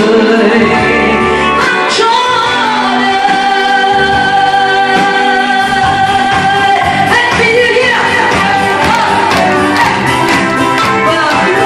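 Loud music with a voice singing over it, holding one long note for several seconds in the middle.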